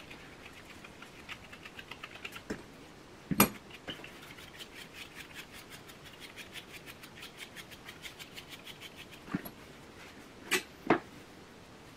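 Quick, even rasping strokes of a hand-stripping tool raking through a West Highland White Terrier's wiry coat, several strokes a second. A few sharp knocks break in about three seconds in and twice near the end.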